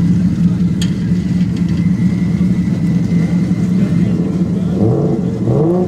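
A car engine idling steadily nearby, with a steady low hum. A voice is heard briefly near the end.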